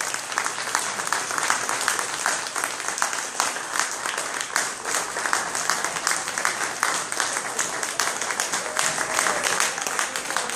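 Audience applauding steadily in a standing ovation, many hands clapping at once, with a voice or two heard in the crowd near the end.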